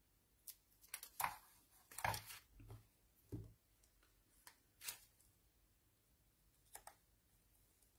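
Faint, scattered rustles and light taps of paper and adhesive being handled: raised adhesive being peeled from its backing, and cut paper pieces being pressed onto a card. The busiest stretch is about one to two and a half seconds in.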